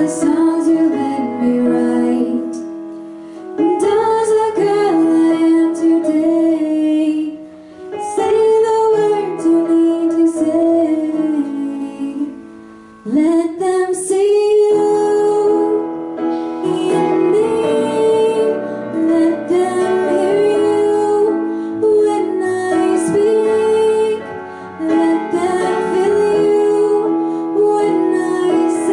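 A woman sings a slow song solo into a handheld microphone over steady instrumental accompaniment, her sung phrases pausing briefly every few seconds while the accompaniment holds underneath.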